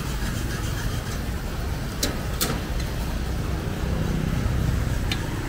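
Steady low rumble of road traffic, with three sharp clicks: two about two seconds in and one near the end.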